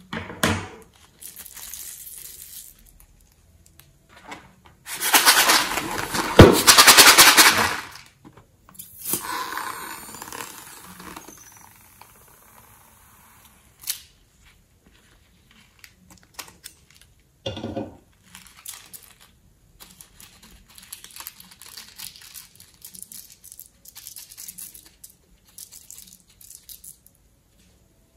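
Balloons filled with glitter being cut open with scissors and emptied onto slime in a glass bowl: sharp snips and rubbery crackling, with a dense crackling rush about five to eight seconds in as the glitter pours out, then quieter rustling and scattered clicks.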